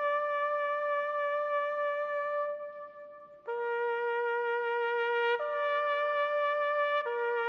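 Solo trumpet playing a slow call of long held notes, the kind played at a graveside. The first note fades away about three seconds in, and after a short gap the call goes on with three more notes, each held for one to two seconds.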